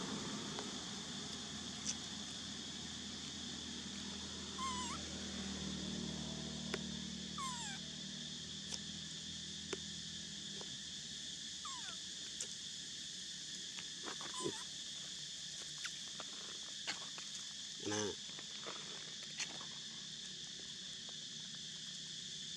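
Steady drone of insects with a few brief squeaking calls and scattered clicks.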